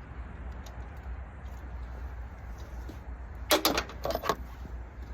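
A quick cluster of small metal clicks and clinks about three and a half seconds in, from spark plugs and hand tools being handled, over a steady low hum.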